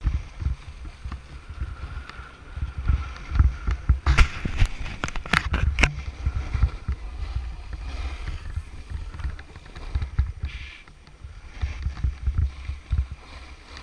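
Snowboard sliding and carving on packed snow, the board's edge scraping, with wind buffeting the camera's microphone in uneven low gusts. A run of sharp clacks between about four and six seconds in.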